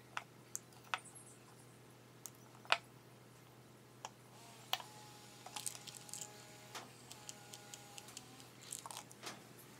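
Light, irregular clicks and taps of small electronic parts and tools being handled and set down on a wooden workbench while a speaker crossover's capacitor is positioned on its board. The loudest tap comes a little under three seconds in, with a quick run of clicks around six seconds, and a faint thin steady tone lingers for about three seconds in the middle.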